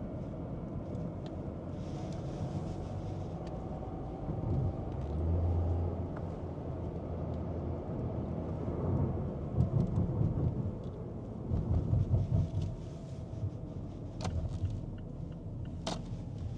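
Car driving, heard from inside: a steady low road and engine rumble, swelling into heavier low rumbles a few times, with a couple of sharp clicks near the end.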